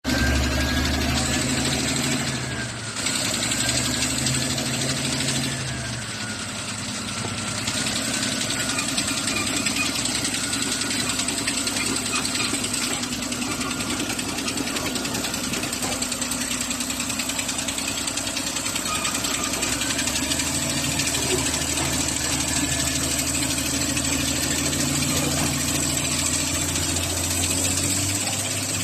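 Caterpillar D6R bulldozer's C9.3 diesel engine running steadily, its note shifting a few times as the engine speed changes.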